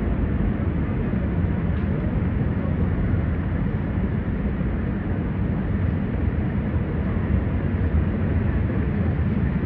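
Steady city street ambience: a dense low rumble of traffic.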